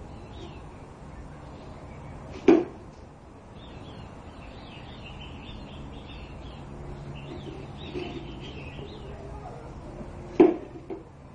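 A container holding a bone knocks sharply twice, about eight seconds apart, as a dog tries to get the bone out of it. Birds chirp faintly in between.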